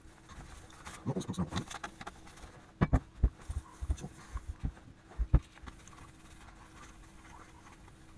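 Fine P3000 sandpaper on a sanding block rubbed in short quick strokes over a steel axe head, followed by several sharp, dull knocks a fraction of a second apart.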